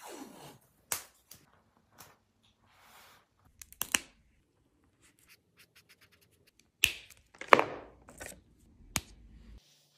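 Plastic art marker caps and barrels being handled: a few sharp clicks spread out, the loudest pair about seven seconds in, with soft scratchy rustles between.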